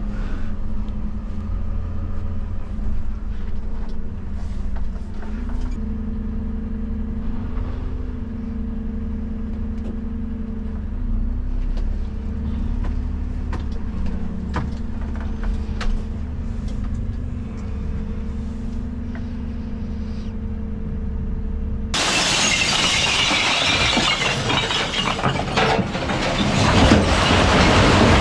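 Refuse truck driving, heard from inside the cab: a steady engine and drivetrain hum over a low rumble, with small clicks and rattles. Near the end the sound abruptly changes to a loud, dense clatter of glass bottles and jars breaking and jostling in the truck's rear hopper.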